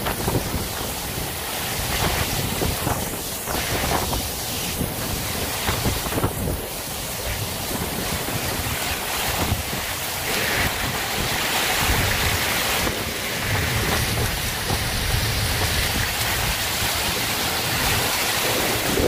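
Strong thunderstorm winds gusting against the microphone with rain, a dense rushing noise with uneven low buffeting.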